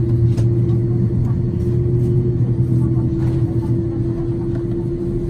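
Steady cabin drone inside a Boeing 787-9 moving on the ground: a constant mid-pitched hum over a low rumble from the idling engines and cabin air system.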